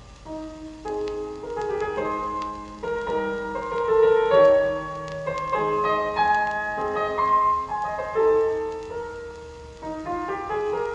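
Piano music played back through Dynaco A-35 loudspeakers whose worn crossover network parts have just been replaced, a run of single notes and chords.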